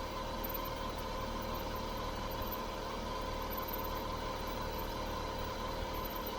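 Great Wall Hover H3 engine idling with a steady whistle from a drive-belt roller (idler/tensioner pulley) that whistles in the frost.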